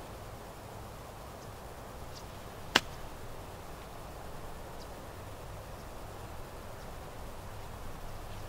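An 8 iron striking a golf ball once for a short pitch-and-run shot: a single sharp click about three seconds in, over a faint steady outdoor background.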